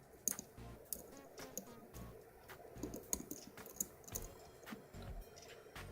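Small, irregular metal clicks and scrapes, a few a second, from a dimple pick working the pins of a cheap dimple lock cylinder held under tension.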